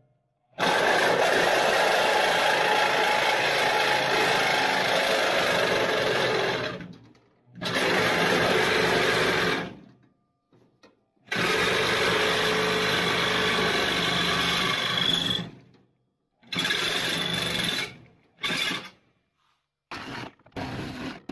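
A corded Milwaukee Sawzall reciprocating saw cutting sheet metal on a Chevy truck door bottom. It runs in about five stretches of one to six seconds with short stops between, then gives a few brief choppy bursts near the end.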